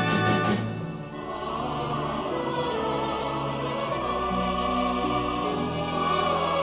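Orchestral film-score music. A loud brass-led chord breaks off about a second in, giving way to softer, sustained orchestral chords over slowly changing low held notes.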